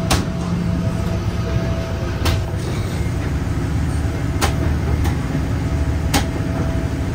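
Steady low rumble and hum inside a parked airliner at the door, with a sharp click about every two seconds.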